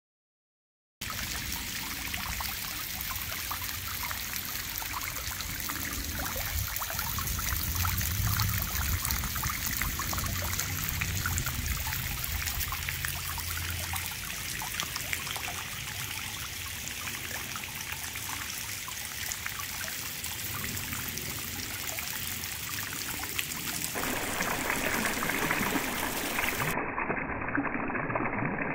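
Water running down an aluminum link rain chain, trickling and splashing with many small drips off the links; it starts about a second in.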